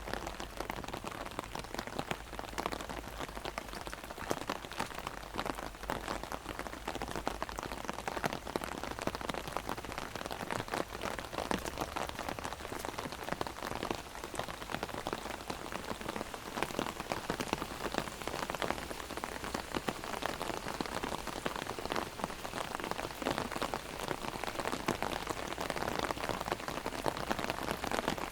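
Heavy rain drumming on an umbrella, a dense steady patter of many drops.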